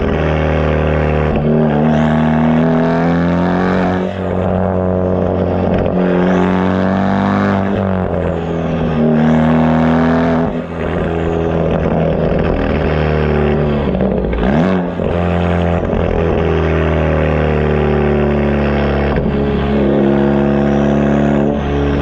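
Mk3 Ford Focus ST's turbocharged four-cylinder through an AWE aftermarket exhaust, heard at the tailpipes while driving. The revs climb and drop back several times as the car pulls, with an aggressive exhaust tone.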